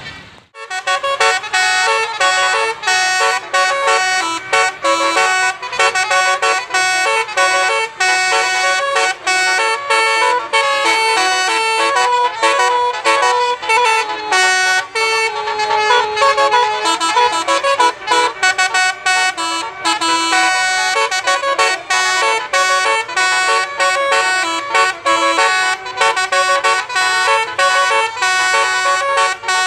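Basuri musical 'telolet' bus horn playing a tune: a loud, continuous run of stepped horn notes changing pitch, starting abruptly just after the start.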